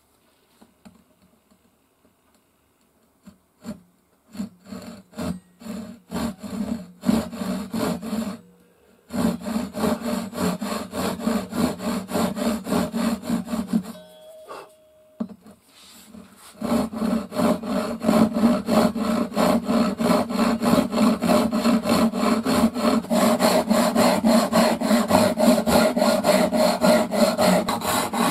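Japanese hand saw cutting a thin wooden board clamped to a bench, in fast rhythmic strokes. After a few quiet seconds it begins with short strokes, stops twice briefly, then saws steadily through the second half.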